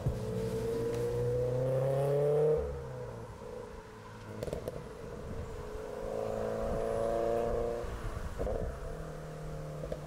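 A car engine accelerating, its pitch rising for about the first two and a half seconds and then falling away. An engine is heard again from about six to eight seconds in.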